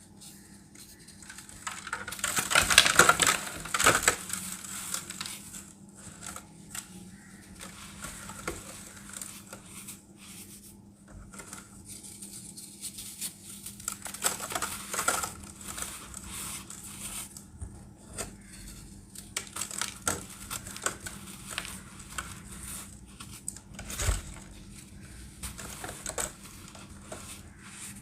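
Irregular crinkling and crushing sounds with scattered sharp crackles. The loudest is a dense burst of about two seconds near the start, and a single thump comes near the end.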